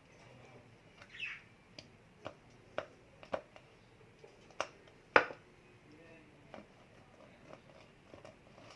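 Kitchen prep knocks and taps: about eight sharp, irregular knocks, the loudest about five seconds in, with a short squeak about a second in.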